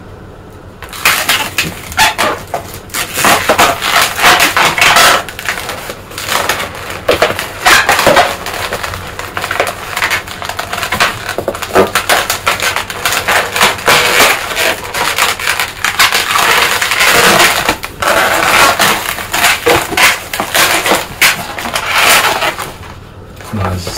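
Latex modelling balloons rubbing, squeaking and crackling as a long white balloon is twisted and wrapped around a balloon sculpture. The noise starts about a second in and stops shortly before the end.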